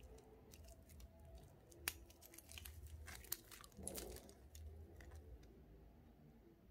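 Faint crinkling and crackling of clear plastic protective film being handled and pulled on a stainless steel watch bracelet, with two sharper clicks about two and three seconds in.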